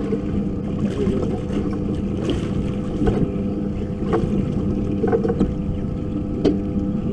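Boat's outboard motor running with a steady low hum, with wind on the microphone and several short, sharp knocks on the boat.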